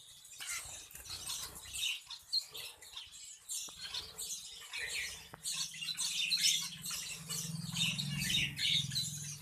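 Bengali finches chirping: a dense run of short, high calls, many birds overlapping.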